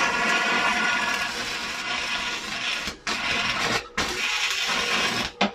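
Electric arc from a Daiden inverter stick welder at 150 amps, crackling and hissing as the electrode is pushed through thin metal to cut it rather than weld it. The arc breaks off for a moment about three seconds in and again about four seconds in, restrikes each time, and then stops just before the end.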